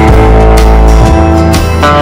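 Background music led by guitar, with a steady beat and bass.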